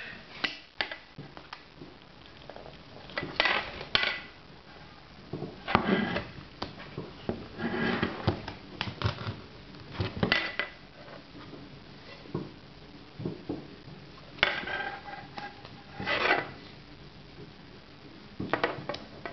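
Hard clear plastic iPod packaging being handled and opened by hand: scattered clicks, taps and rustles, in several short bursts.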